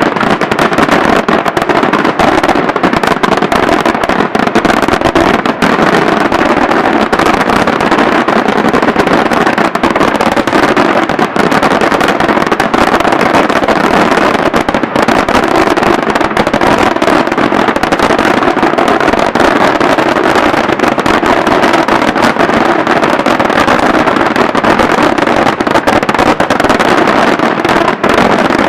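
Daytime aerial fireworks: a dense, unbroken barrage of bursting shells and crackling, the reports so rapid they run together into one continuous loud noise.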